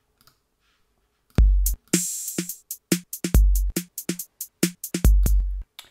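Sampled drum machine playing a programmed beat of kick, snare and closed hi-hat at 145 bpm, with some hits softer than others as each note is given its own volume. It starts about a second and a half in after a short silence and stops just before the end.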